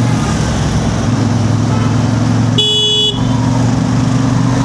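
CF Moto 450MT parallel-twin motorcycle engine running steadily in traffic. A vehicle horn honks once, briefly, about two and a half seconds in.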